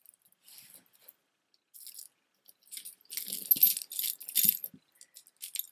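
Stone and glass beads on strung jewelry clicking and rattling against each other as the pieces are handled. There are a few brief clatters, then a louder, denser run of clicking through the middle.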